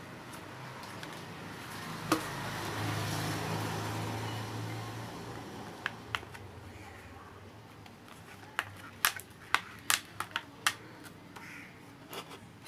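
A low rumbling noise swells and fades over the first few seconds, then a plastic toy airplane is handled, giving a string of sharp plastic clicks and taps in the second half.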